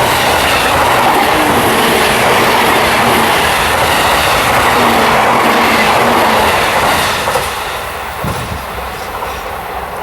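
JR East Series E353 limited express electric train passing close by at speed, with loud steady running noise of wheels on rail. The noise drops away about seven seconds in as the end of the train goes past.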